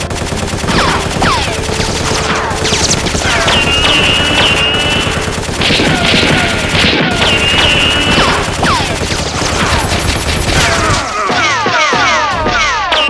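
Sustained rapid automatic gunfire, a dubbed firefight sound effect, with many short falling whistling tones among the shots.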